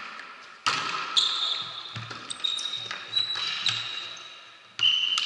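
Volleyball rally in a sports hall: the ball struck sharply a few times, about a second in, just after, and near the end, with smaller knocks and high squeaks between, each hit echoing and dying away slowly in the hall.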